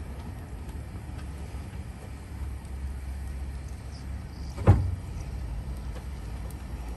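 Ooni Koda 16 gas pizza oven's burner running on full flame, a steady low rumble. One short knock sounds about two-thirds of the way through.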